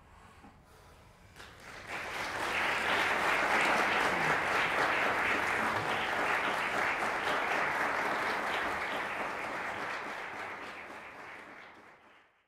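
Audience applauding: a brief hush, then clapping swells in about a second and a half in, holds steady, and fades away near the end.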